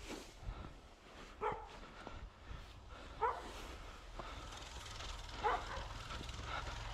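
A dog barking: four short barks, one to two seconds apart.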